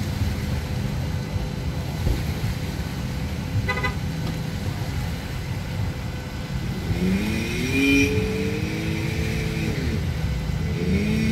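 Engines at a boat ramp idling with a steady low rumble. About seven seconds in, one engine revs up, holds and drops back down, and another rev rises near the end. There is a short beep or toot about four seconds in.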